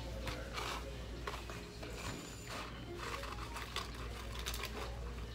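Fast-food restaurant room background: a low steady hum under scattered clicks, light clatter and rustling.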